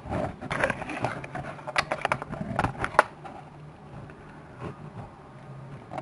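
Close handling noises: a quick run of small clicks, taps and rustles over the first three seconds, then quieter.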